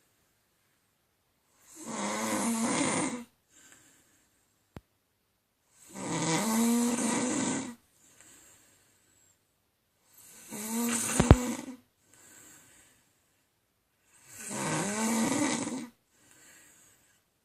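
A woman snoring in her sleep: four long snores, each about a second and a half, coming about every four seconds. Each snore is followed by a fainter short sound. There is a sharp click in the middle of the third snore.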